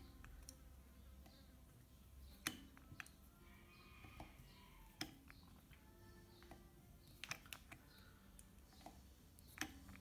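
Near-quiet, with a handful of irregular sharp clicks and ticks from a small tube cutter being turned around a copper refrigerator-compressor pipe and tightened as its wheel scores the pipe.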